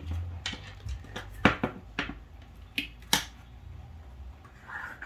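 Store-bought slime being pressed and squeezed by hand, giving a run of sharp, irregular pops and clicks, with a softer squelch near the end.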